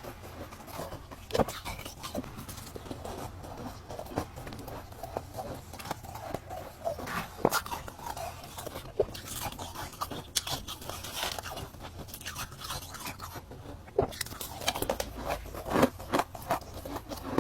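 Ice being bitten and crunched between teeth: a run of sharp, irregular crunches, a few standing out louder than the rest.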